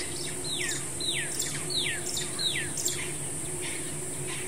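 A bird whistling a series of four notes, each sliding steeply downward, about two-thirds of a second apart, with a few short chirps after. Under it runs a steady high-pitched insect buzz and a low steady hum.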